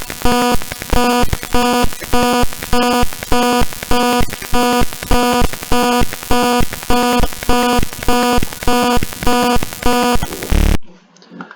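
Electronic alarm buzzer of a triggered alarm system sounding in a circuit simulator: a harsh, low buzzing tone that pulses on and off about two and a half times a second and cuts off suddenly shortly before the end.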